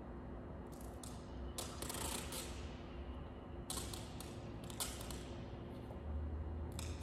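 Adhesive tape being pulled off a roll in about five short rips, to stick a target to a wall, over a steady low hum.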